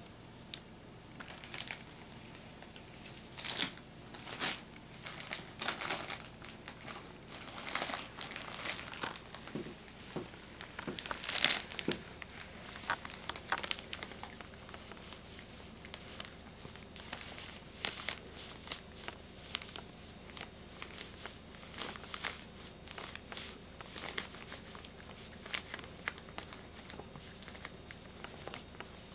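Thin clear plastic bag crinkling and rustling in irregular bursts as a cat pushes and rubs its head around inside it, drawn by the bag's leftover silvervine scent. The crinkles come thickest in the first half, and the loudest is about eleven seconds in.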